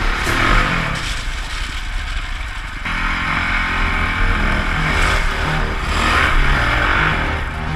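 Dirt bike engine revving up and down as the bike is ridden across loose gravel.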